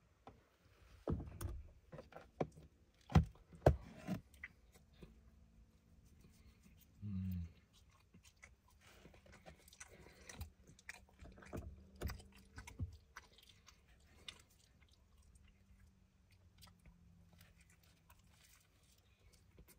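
A person chewing and biting into pizza close to the microphone. There are a few loud knocks from handling in the first four seconds and a brief low hum about seven seconds in.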